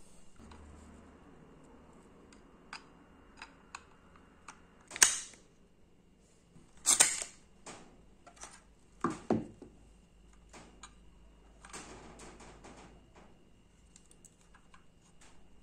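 Clicks and snaps of metal and plastic parts as a Marksman dart and BB pistol is reassembled by hand. The sharpest snap comes about five seconds in, another cluster about seven seconds in, and two quick clicks near nine seconds, with light handling noise between.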